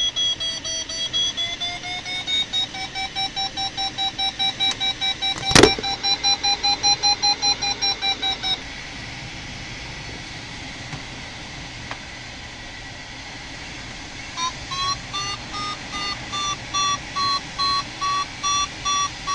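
Glider audio variometer beeping at about three beeps a second while the sailplane climbs in a thermal, its pitch rising a little as the climb strengthens. The beeping drops out for about six seconds, leaving a steady hiss, then returns at a higher pitch. There is one sharp click about five and a half seconds in.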